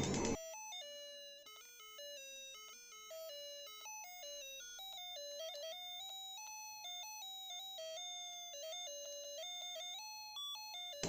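A simple electronic beeping tune, single notes stepping up and down like a ringtone, from the sound chip of a battery-powered Spiderman light gun toy.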